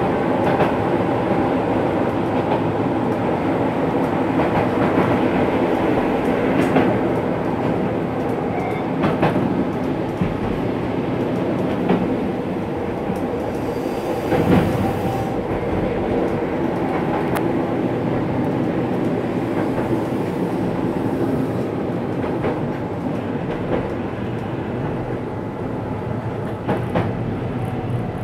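Keihan 800 series train running on the Keishin Line, heard from inside the car: a steady running rumble with clicks from the wheels over the rails. A brief louder rush of noise comes about halfway through.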